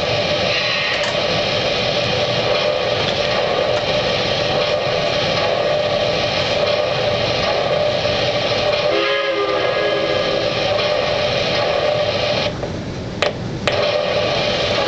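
Lionel O-gauge model train running, giving a steady noisy hum with a constant tone through it, and a short whistle about nine seconds in. The noise drops briefly near the end between two clicks.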